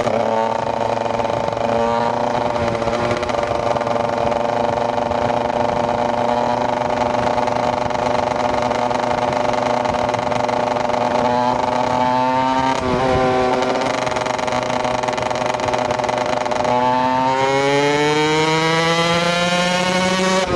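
KTM EXC 125 single-cylinder two-stroke motorcycle engine under way, holding a steady pitch at cruising speed. It dips and picks up again about two-thirds of the way through, then climbs in a long rising rev near the end as the bike accelerates.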